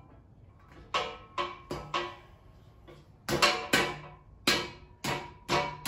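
Background music: a sparse run of sharp, plucked or struck notes, each ringing briefly and fading, at an uneven pace.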